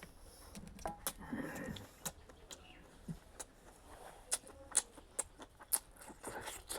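A person eating: irregular mouth smacks and small clicks, several a second at times.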